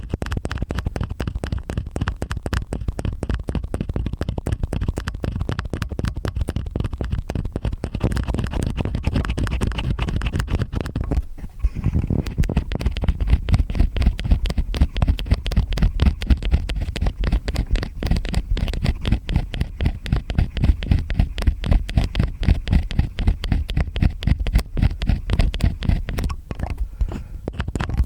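Two stainless steel ear picks scraping and scratching in both ears at once, ASMR ear-cleaning sounds: a dense run of rapid crackly scrapes, with a brief pause about eleven seconds in and somewhat louder strokes after it.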